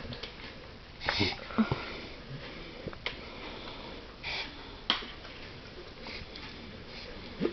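Dog snorting and sniffing hard through its nose in a handful of short, separate bursts a few seconds apart: the sound of a dog reverse sneezing.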